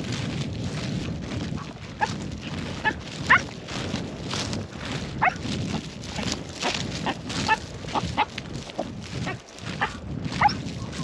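A tracking dog pulling on its lead, giving repeated short yelps and whines, several sliding down in pitch, over the steady rustle of footsteps through dry stubble.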